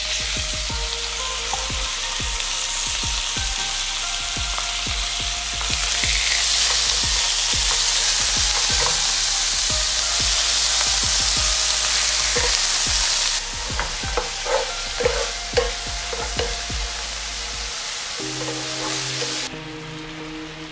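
Thin strips of marinated beef sizzling as they fry in oil in a nonstick frying pan, stirred with a wooden spatula. The sizzle grows louder about six seconds in and eases off about halfway through, followed by a few sharp knocks of the spatula against the pan.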